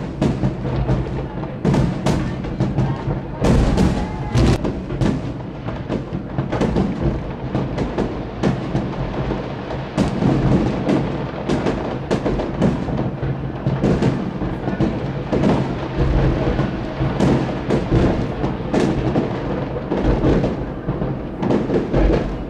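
Big aerial fireworks display bursting in rapid, continuous succession: a dense run of booms and bangs, with a brief whistling glide about four seconds in.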